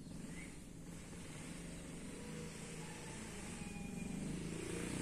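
A motor vehicle engine running off-picture, getting gradually louder toward the end as it comes closer.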